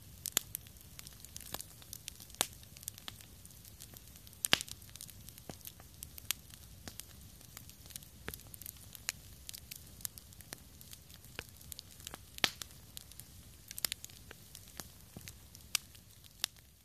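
Wood campfire burning: irregular sharp crackles and pops from the logs over a low steady rumble, with a few much louder pops.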